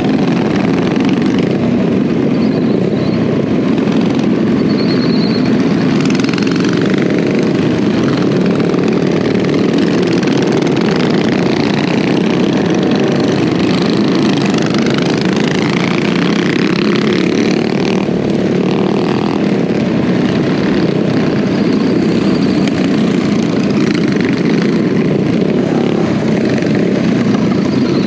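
Minibike engines running steadily under way in a group ride: a continuous, loud engine drone as the bike carrying the camera picks up speed among the others.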